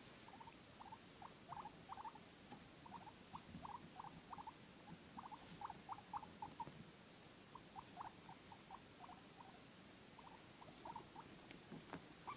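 Guinea pigs making short, soft squeaks in quick runs of several a second, broken by brief pauses.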